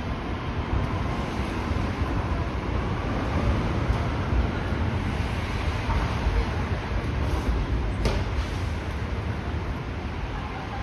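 Busy railway station platform ambience: a steady noisy rumble with faint indistinct voices, and one sharp click about eight seconds in.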